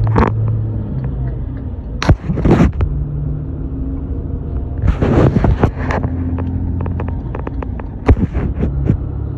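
Cummins 6.7 L turbo-diesel straight-six of a Ram 3500 running under light load while the truck is driven and shifted through its manual gearbox; the engine note steps in pitch a few times. Clusters of knocks and rattles come about 2, 5 and 8 seconds in.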